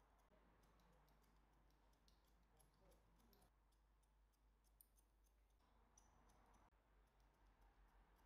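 Near silence with faint, irregular clicks over a low steady hum.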